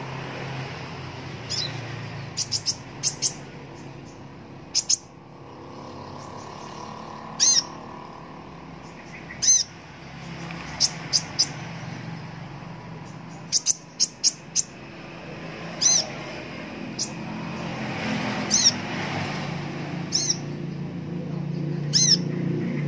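Male Van Hasselt's sunbird (kolibri ninja) chirping: short, sharp, high-pitched chirps, some single and some in quick runs of two to four, a second or two apart.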